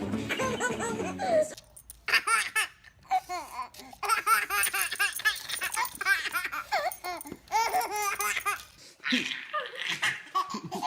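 A baby laughing in quick runs of short giggles, with a different laugh taking over near the end.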